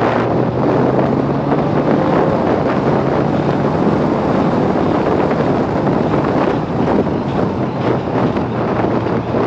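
Motorcycle riding at a steady speed: heavy wind rushing over the microphone over a steady engine hum.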